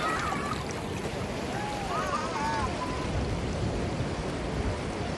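Shallow sea water washing over sand at the shoreline, a steady wash with low wind rumble on the microphone. Faint distant calls come through about two seconds in.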